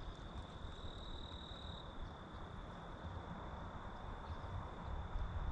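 Steady high-pitched insect trill, briefly a little louder about a second in, over a low rumble.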